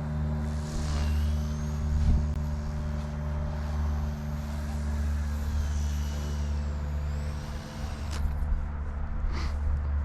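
Small electric RC helicopter's motor and rotors whining, the pitch rising and falling as the throttle changes, over a steady low rumble.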